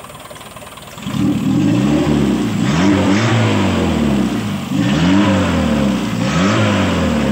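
Four-cylinder carbureted engine revved by hand at the carburetor, four times, its pitch rising and falling with each blip after about a second of idle. The engine is being tested for response after its distributor breaker plate and ignition timing were reset, with the vacuum advance diaphragm out of action.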